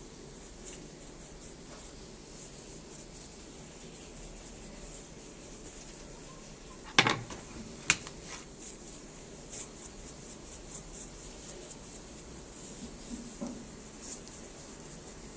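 Food prep on a wooden cutting board. About seven seconds in come two sharp knocks, a second apart, as a whole fish is turned over on the board. Around them are faint ticks and rubbing from salt and pepper being shaken out of plastic shaker bottles onto the fish.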